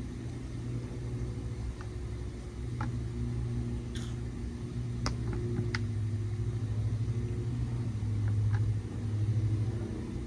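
A steady low motor hum with a few light clicks scattered through it.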